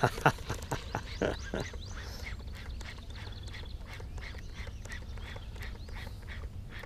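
Cast with a baitcasting rod and reel: sharp clatter at the start as the rod swings, a knock about a second and a half in as the lure lands, then a long run of short, evenly spaced sounds, about three a second, while the lure is reeled in. A steady low rumble sits underneath.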